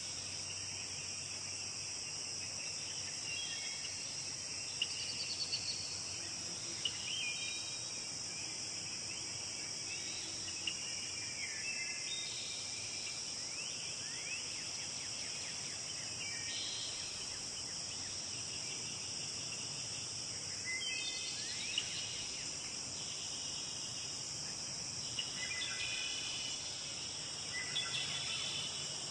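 Steady high-pitched insect chorus, with short chirping calls coming and going throughout.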